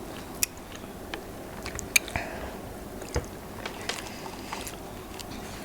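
Chewing and biting food close to the microphone, with a few scattered small clicks and taps.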